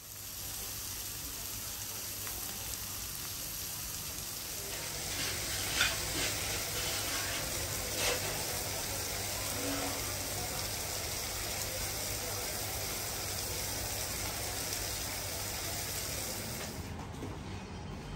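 Sliced beef, rice and a fried egg sizzling on a black iron hot plate, a steady hiss with two sharp clicks about six and eight seconds in; the sizzle drops away near the end.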